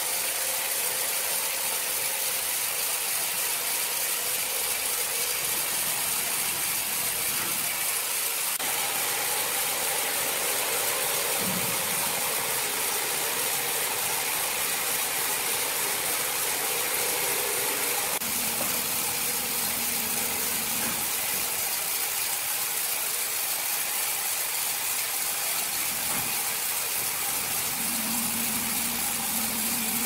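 Large horizontal band sawmill running, its band blade cutting lengthwise through a big log with a steady hiss of blade in wood over the hum of the electric drive.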